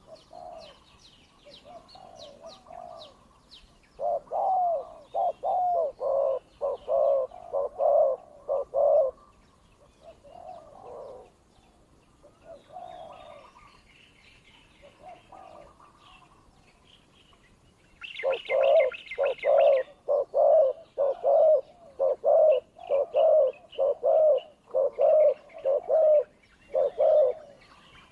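Spotted doves giving two long runs of rapid, loud cooing, about two coos a second, from a few seconds in and again over the second half. This is the fast contest cooing of a decoy dove and a wild dove challenging each other. Smaller birds chirp faintly in the background.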